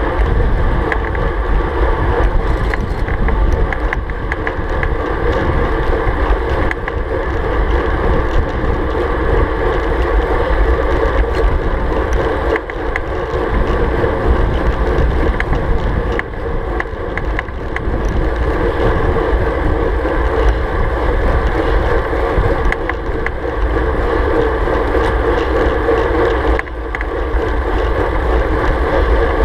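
Wind rushing over a bike-mounted GoPro's microphone at about 37 km/h, with tyre and road noise from a road bike beneath it. The rush is loud and steady, with a few brief dips.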